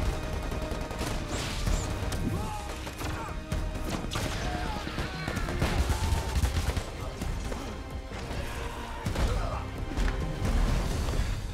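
Movie battle sound effects: bursts of rifle fire, crashes and heavy impacts over a music score and a low rumble.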